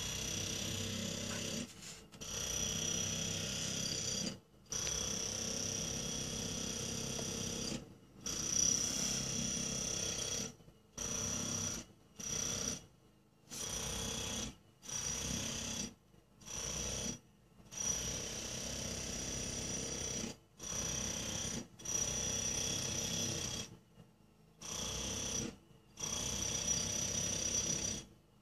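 Jackhammer breaking up a concrete footpath. It hammers in more than a dozen bursts of one to three seconds with short pauses between them, and a steady high whine rides on top.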